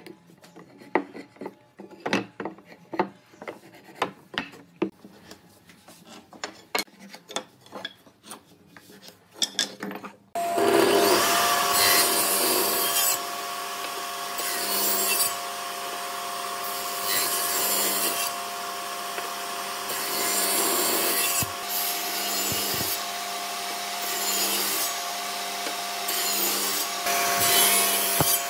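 Hand work on wood for about ten seconds, a run of sharp taps and knocks. Then a power tool starts suddenly and runs loudly on wood, with a steady whine, its noise swelling and easing every few seconds.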